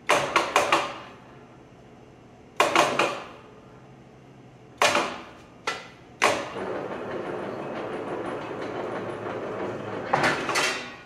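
Steel plate being rolled in a powered plate roller. The plate clangs sharply against the steel rolls in short clusters. From about six seconds in, the rolls run steadily for about four seconds, and near the end come a few more clangs as the curved plate is lifted out.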